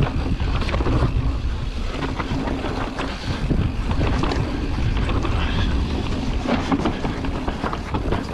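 Mountain bike descending a dry dirt trail at speed: wind buffeting the mounted camera's microphone over the rumble of knobbly tyres on dirt. Occasional short knocks and rattles come from the bike going over bumps.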